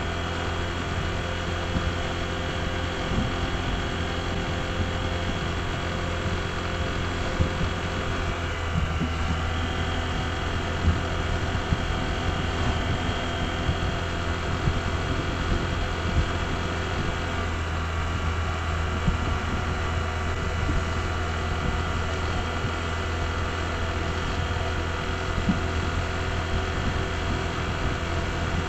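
Honda ADV160 scooter's single-cylinder engine running steadily while riding, with a steady rush of noise beneath; the engine note shifts slightly about eight seconds in.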